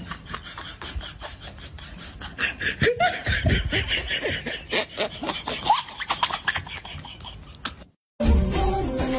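A person laughing in short fits, starting about two and a half seconds in, cut off abruptly near the end as music starts.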